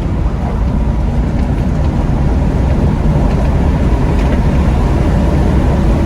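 Chevrolet Caprice PPV's V8 at full-throttle acceleration up to about 100 mph: a steady deep engine and road rumble that builds slightly in loudness.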